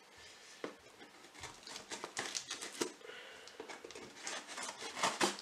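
Hands handling a cardboard shipping box: a string of light rubs, taps and scrapes on the cardboard, with a louder knock near the end.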